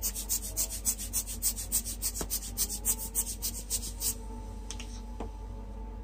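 Fast back-and-forth scribbling strokes on glossy photo paper, about six a second, scratchy and rasping, stopping after about four seconds.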